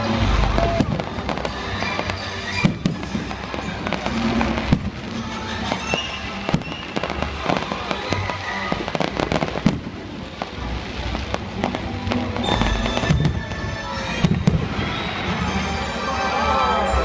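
Aerial fireworks exploding in rapid, irregular succession, sharp bangs and low booms several times a second, with music playing underneath.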